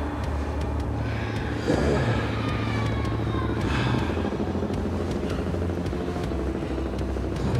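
Film soundtrack: a steady low rumbling drone, with a swell of rushing noise about two seconds in and another about four seconds in.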